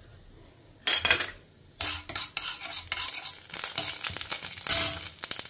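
A long steel spoon stirring and scraping cumin and mustard seeds in hot oil in a stainless steel frying pan, with sizzling and metal scraping. The sound comes in sharply about a second in and runs thick and uneven from about two seconds on.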